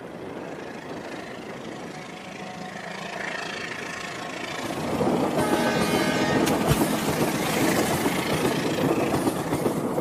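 Battery-powered toy diesel train running along its track, its motor and wheels getting louder as it approaches and passes, with a horn sound from the toy about halfway through.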